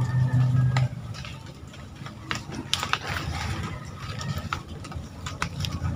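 Dry palm fronds and leaf litter rustling and crackling, with scattered sharp clicks, as a gloved hand takes hold of a tethered monitor lizard lying in them. A low steady hum comes first and cuts off about a second in.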